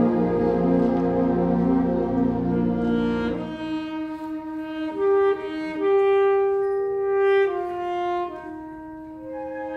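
Concert band playing; a little over three seconds in the low instruments drop out and the woodwinds carry on alone with a line of held notes, each about a second long.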